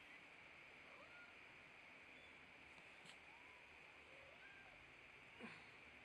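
Near silence with steady hiss, broken by a few faint, short kitten mews; a slightly louder one near the end slides down in pitch.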